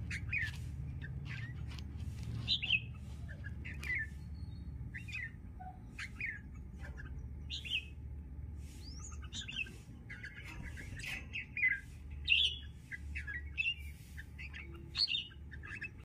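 Bulbuls calling: short chirps that fall in pitch, repeated about once a second and crowding closer together in the last few seconds, over a low steady hum.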